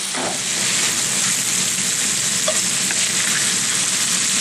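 Meatballs sizzling steadily in hot grease in a cast-iron skillet, with a wooden spatula scraping and moving them around the pan.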